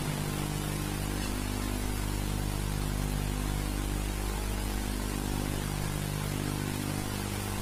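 Steady low electrical hum with an even layer of hiss underneath, the background noise of the recording.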